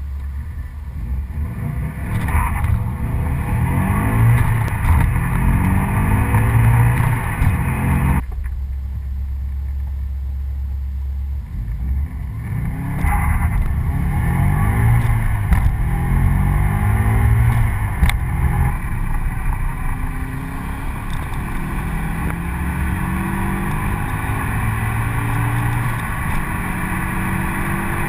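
Turbocharged 2.0-litre flat-four of a 1998 Subaru Impreza WRX STI Type R, heard inside the cabin, revving hard and climbing through the gears in a 0-100 km/h acceleration run. The engine sound drops off suddenly about eight seconds in, climbs through the gears again from about twelve seconds, and settles to a steadier pull near the end.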